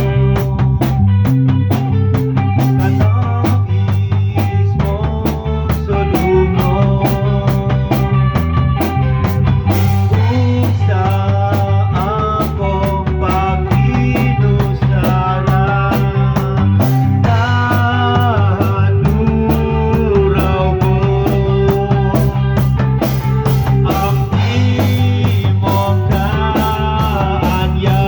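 Live rock band playing an instrumental passage of a song: a drum kit keeps a steady beat under a bass line and a lead melody.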